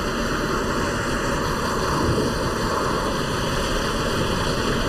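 Peppercorn A1 Pacific steam locomotive running at high speed, heard inside its cab: a steady rushing noise of the engine, wheels and wind, with no separate beats standing out.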